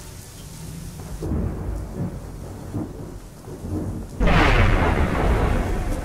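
Rain falling steadily with thunder: a low rumble begins about a second in, then a sudden loud thunderclap about four seconds in that slowly dies away.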